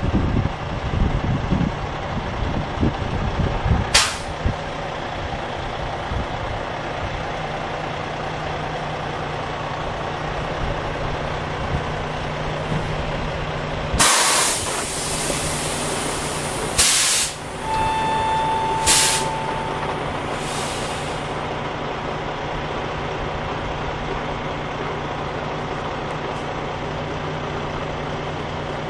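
Semi truck's diesel engine rumbling as it finishes backing up, then idling steadily after a sharp click about four seconds in. About halfway through, the air brakes are set with a loud burst of air hiss. A second hiss follows, then a steady beep lasting about two seconds with a short hiss during it, and a last fainter hiss.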